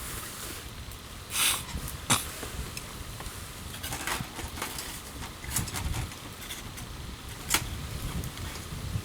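Wood campfire crackling, with a handful of sharp pops and snaps scattered through it; the loudest come about one and a half seconds in and again near the end.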